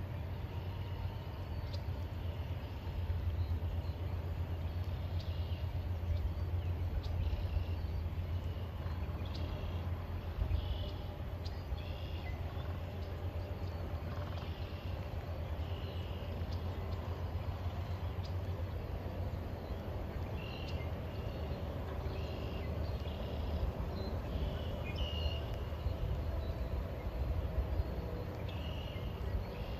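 Sandhill cranes calling in flight: short, rolling calls that repeat every second or two, over a steady low rumble.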